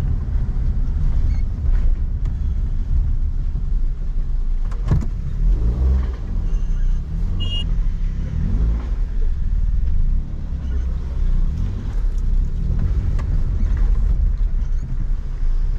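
Car driving on a narrow road, heard from inside the cabin: steady low engine and road rumble, with one sharp knock about five seconds in.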